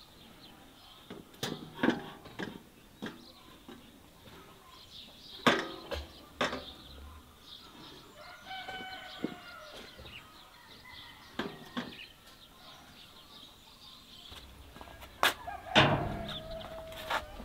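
Chickens clucking and calling, with a longer call about halfway through, among scattered sharp knocks and clatter.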